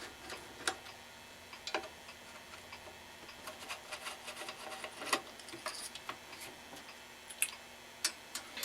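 Scattered small metal clicks and faint scraping from a screwdriver backing out screws inside a BC-342 radio receiver's chassis, with a few sharper clicks spread through it.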